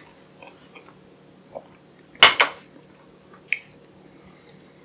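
A glass tumbler being handled and set down on a hard surface: a few soft clicks, then two sharp clinks in quick succession about two seconds in and a last lighter clink near the end.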